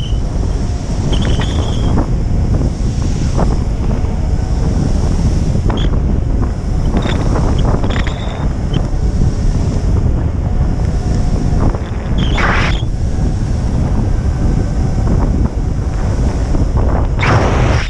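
Wind buffeting the camera's microphone in a loud, steady low rumble, with short bursts of hiss as gusts hit, the strongest about twelve seconds in and near the end.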